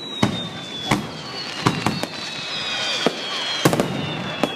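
Aerial fireworks going off in a display: about six sharp bangs, two in quick succession near the end, under several high whistles that slowly fall in pitch.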